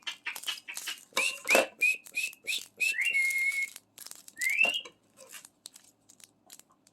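African grey parrot whistling: a run of short notes, then one held note, then a quick rising whistle. Small plastic clicks and rattles are heard around it.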